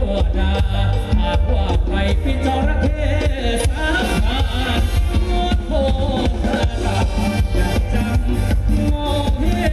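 Loud ramwong dance music from a live Thai band, with a heavy bass and a steady beat.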